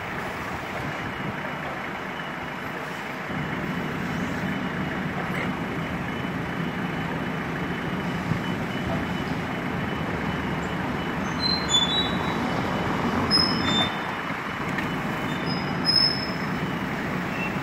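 Forklift engine running with its hydraulics working a rotating clamp attachment. The engine note steps up about three seconds in as the hydraulics take the load, and a few short high-pitched chirps or squeaks come near the end.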